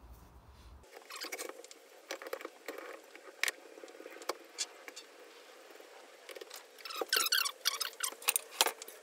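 Small handling noises: scattered clicks, taps and rustles as hand tools and a porcelain hand basin are moved about, busiest near the end, over a faint steady hum.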